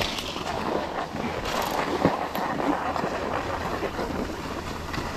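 Skis scraping over groomed piste snow as the skier sets off, with wind on the microphone and a sharp knock about two seconds in.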